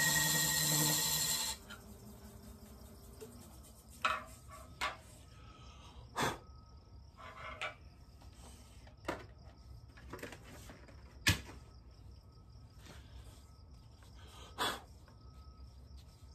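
A wood lathe's motor hum stops abruptly about a second and a half in as the lathe is switched off, with a fainter tone dying away over the next two seconds. After that come scattered light knocks and taps from handling the wooden vase on the stopped lathe, over a faint steady high chirring like crickets.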